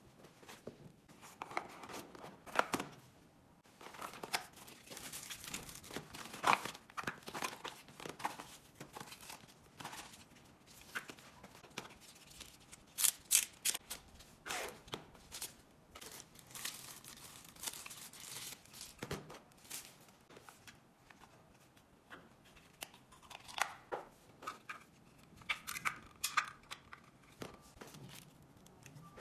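Hands unpacking small accessories: clear plastic bags rustling and crinkling, with scattered clicks and taps as small parts are picked up and set down on a table.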